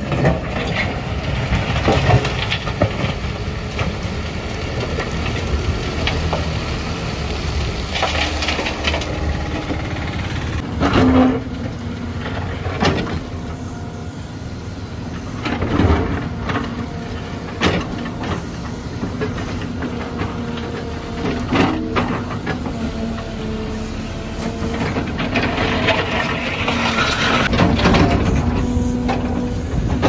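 Backhoe loader's diesel engine running under load, with loud scrapes and knocks every few seconds as its bucket digs through broken concrete rubble.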